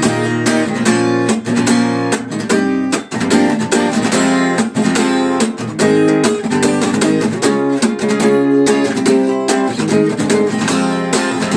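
Acoustic guitar strummed in a steady, even rhythm, playing the chords of a song's instrumental passage without singing.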